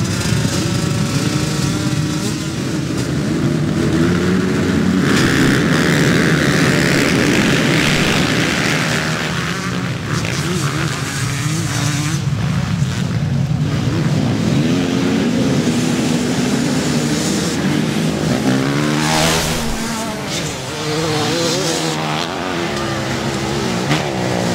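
A pack of motocross bikes revving and accelerating hard off the start, then racing past, many engines rising and falling in pitch at once. The engines are loudest and at their highest revs a few seconds in.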